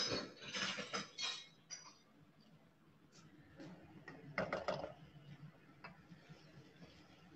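Kitchen utensils clinking and clattering against cookware: a burst of sharp clinks at the start, another shorter cluster about four and a half seconds in, and a few faint ticks between.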